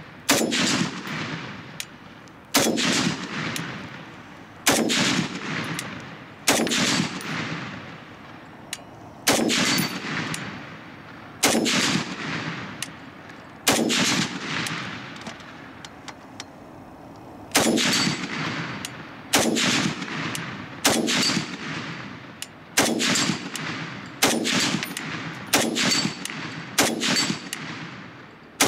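Custom semi-automatic .308 Saiga rifle fired in slow, aimed shots, more than a dozen in all, a second or two apart, each shot followed by a long rolling echo. There is a pause of about four seconds in the middle of the string.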